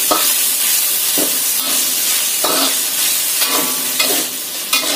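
Chicken, shallots and dried chilies sizzling in hot oil in a wok, with a steady hiss, while a metal wok spatula scrapes and tosses them, a stroke roughly once a second.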